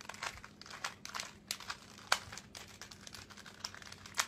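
3x3 Rubik's cube being turned rapidly by hand in a speed solve: a quick, irregular run of faint plastic clicks and clacks as the layers snap round.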